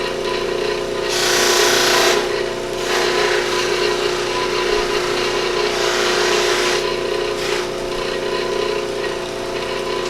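Electric buffing wheel running steadily, with a hissing rub when a piece of deer antler is pressed against the spinning compound-charged wheel, loudest for about a second near the start and again about six seconds in.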